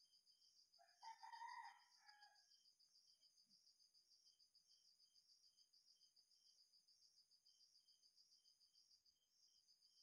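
Faint background of insects trilling in a steady, evenly pulsing high chirr, with one drawn-out call about a second in that lasts roughly a second and a half.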